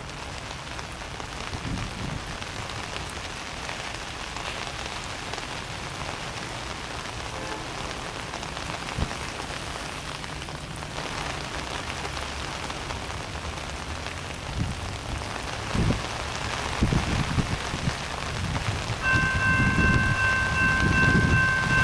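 Heavy rain hissing steadily, with a low rumble that grows louder in the last several seconds as an Amtrak P42DC locomotive approaches. About 19 seconds in, the locomotive's K5LA horn starts sounding a steady multi-note chord.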